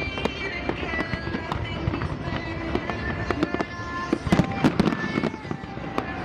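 Fireworks going off: a rapid, irregular series of bangs and crackles, heaviest about four to five seconds in, with short whistling tones mixed in.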